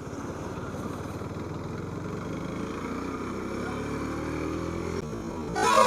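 Motorcycle engine running as the bike pulls away, its note rising steadily for a couple of seconds before dropping off about five seconds in. A louder rush of noise follows at the very end.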